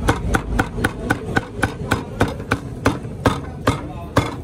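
Cleaver chopping roast meat on a chopping block: a steady run of sharp chops, about four a second, spacing out slightly near the end.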